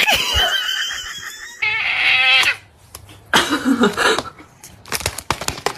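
Cat crying out in two long, wavering, high-pitched meows, then a run of knocks and clatters.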